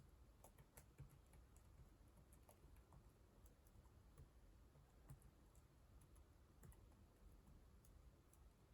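Faint computer keyboard typing: irregular, quick key clicks at an uneven pace.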